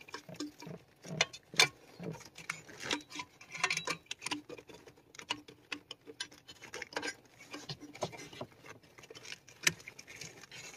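Irregular small clicks, taps and rustling of hands handling the ignition switch wiring and connectors under a car's dashboard.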